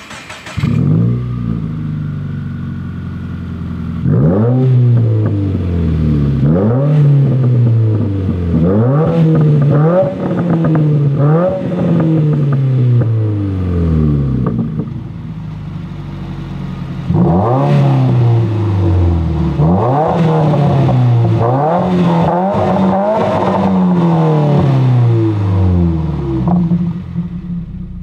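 Subaru VA WRX's turbocharged 2.0-litre flat-four breathing through an AWE Track Edition 3-inch stainless straight-through cat-back exhaust: the engine fires up just after the start and settles to idle, then is revved in a run of quick throttle blips, each climbing and falling back in pitch, idles briefly, and is blipped again in a second run.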